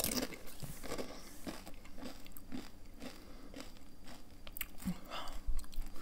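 A person chewing a mouthful of tortilla chip close to the microphone: a string of crisp, irregular crunches, a little louder near the end.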